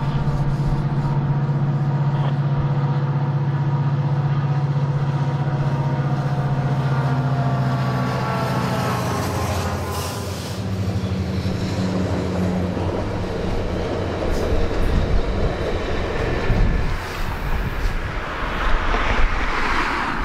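Canadian Pacific GP20C-ECO diesel locomotive running past with a steady low engine drone that drops in pitch as it goes by. Then the trailing passenger, generator and track evaluation cars rumble over the rails as the train moves away.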